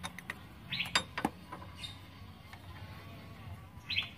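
Sharp metallic clicks and taps from hand tools working the cap bolt on a diesel injection pump as it is loosened, several in the first second and a half. Two short bird chirps and a faint low hum underneath.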